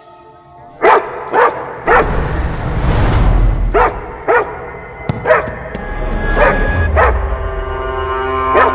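A dog barking in short yaps, often in pairs, about nine times, over background music.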